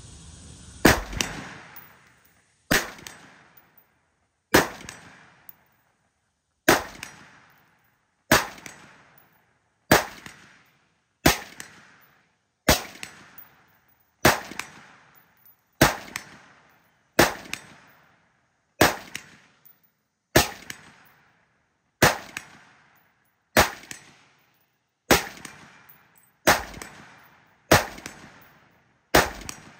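Black Rifle Arms C.A.P.S. external-piston AR-style rifle fired in slow, steady single shots, about nineteen sharp reports roughly a second and a half apart, each trailing off briefly.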